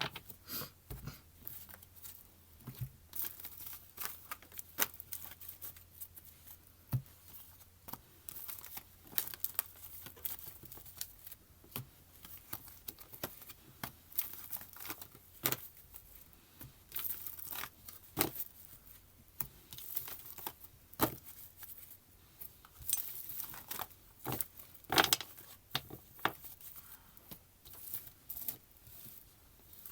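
Tarot cards being shuffled and handled: an irregular run of papery crackles, flicks and soft taps, a few louder snaps along the way.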